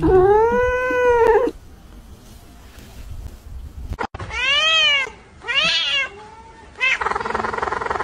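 Domestic cats meowing: one long drawn-out meow, then after a pause, about halfway, two more arching meows and a short one from another cat. Near the end a buzzing, noisy sound comes in.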